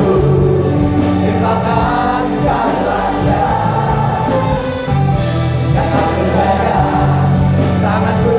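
Gospel worship music: a choir of voices singing a praise song over sustained instrumental accompaniment.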